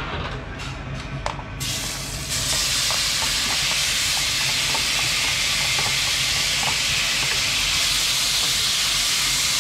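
Sliced vegetables hit hot frying oil in a pan and sizzle loudly, about a second and a half in, after a few light clicks. The sizzle holds steady as they are sautéed in the oil left from frying fish.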